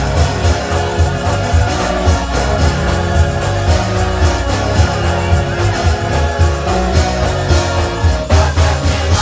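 Gospel music with a steady beat and heavy bass, played live for a church choir's selection.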